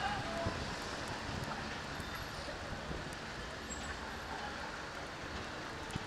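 A passenger train pulling away behind a GM GT22 diesel locomotive: a steady, rushing rumble of the engine and wheels on the rails, slowly fading as it recedes.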